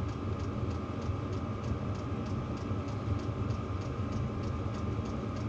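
Steady low mechanical hum with a faint, even ticking about three times a second.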